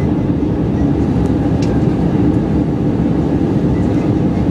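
Steady cabin noise of an Airbus A320-216 in flight, heard from a window seat beside the wing: the CFM56 turbofan engines and rushing airflow make an even, deep rumble with a faint low drone.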